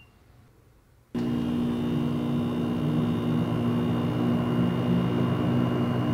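Rheem hybrid heat pump water heater starting up in heat pump mode about a second in: its compressor and fan come on suddenly and run steadily with a low hum and a faint high whine.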